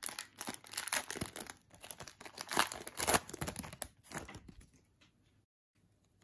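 Foil wrapper of a trading card pack crinkling and tearing as it is peeled open and the cards are slid out, in quick irregular crackles that stop about five seconds in.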